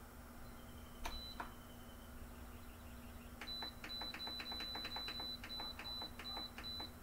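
Instant Pot electric pressure cooker's control-panel buttons being pressed, each press a soft click with a short high beep: one press about a second in, then a quick run of about fifteen presses, about four a second, as the cooking time is set.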